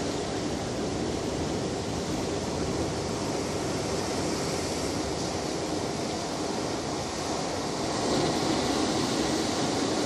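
Ocean waves breaking and washing ashore, a continuous rushing surf that grows louder near the end.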